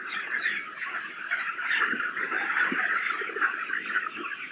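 A large flock of Sonali chickens in a shed clucking and calling all at once, a dense continuous chatter of many overlapping small calls.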